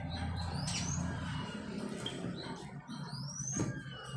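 Birds chirping: two quick rising whistles, about a second in and again just past three seconds, over a low steady hum. A single knife tap on a wooden chopping board comes just after the second chirp.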